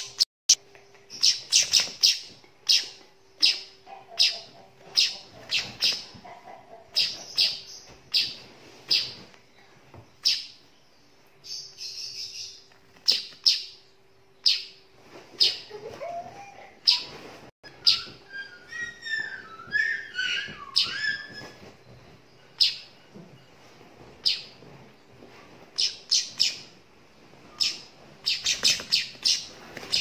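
Weaver bird fledgling (burung manyar) chirping again and again, short sharp high calls that come singly or in quick runs of several.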